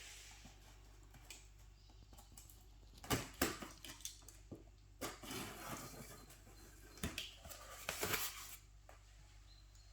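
Packaging being handled during unboxing: a few sharp knocks and stretches of rustling, with a steady low hum underneath.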